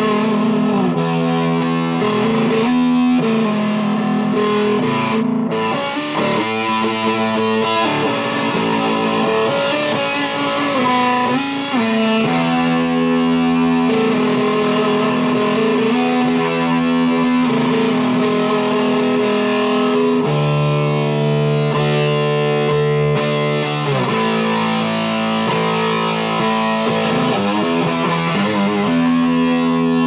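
Electric guitar played through a Buzz Bomb high-gain fuzz pedal: thick, distorted held notes and chords in loose noodling, with a run of quicker notes about a quarter of the way in.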